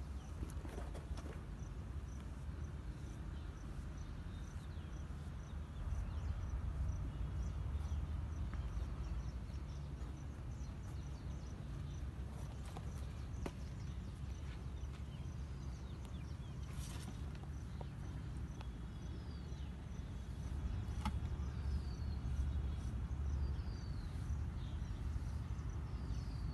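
Outdoor ambience: a steady low rumble with a faint high chirp repeating about twice a second, and a few short falling chirps in the second half.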